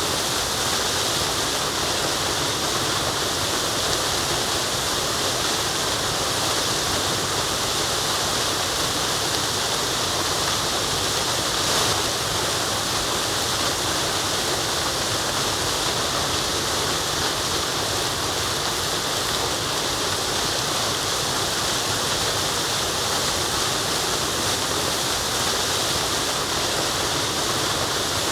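Waterfall: water running and falling, a steady, unbroken rushing.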